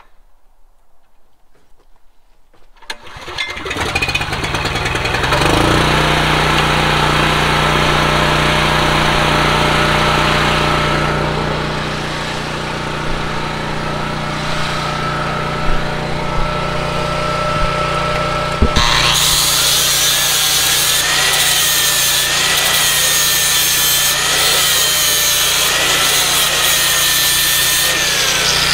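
A small petrol engine on a portable welding setup starts about three seconds in and settles into a steady run. About 19 seconds in, an angle grinder with a flap wheel starts up over it, grinding steel with a wavering whine.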